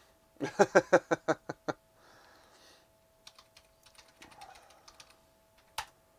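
Typing on a computer keyboard: a quick run of loud keystrokes in the first two seconds, then lighter, scattered taps and one sharp click near the end, over a faint steady hum.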